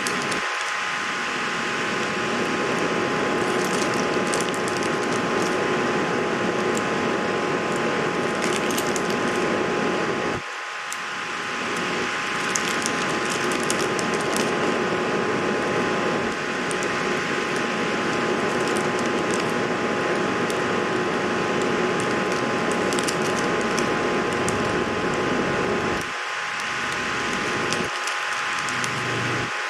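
Scattered small plastic clicks of keycaps being pressed onto MX-style mechanical keyboard switches, over a steady hiss with a faint hum.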